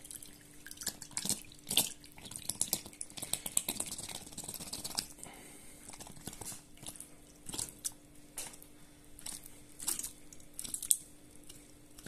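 Home-canned silver carp in tomato sauce sliding and dripping out of an upturned glass jar onto a glass plate: irregular wet drips and splats, with a few louder clusters as the jar is shaken.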